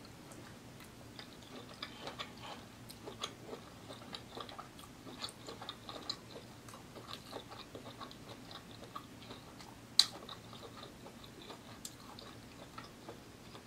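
A person chewing seafood boil in sauce: soft, wet mouth clicks and smacks, with one sharper click about ten seconds in.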